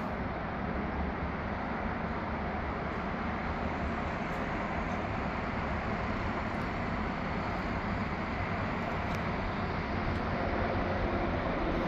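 Steady outdoor background rumble with no distinct events, growing a little louder near the end.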